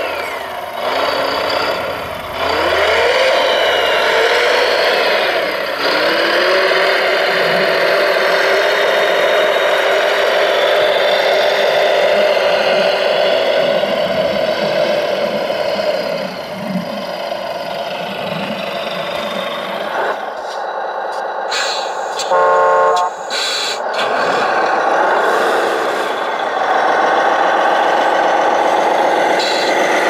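Radio-controlled model construction vehicles running: steady motor and gear whine, with pitch rising and falling as they drive and work. A short horn blast sounds about two-thirds of the way through.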